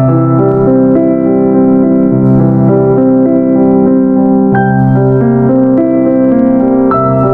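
Background music on an electric piano or keyboard: slow sustained chords over a bass line that moves about once a second.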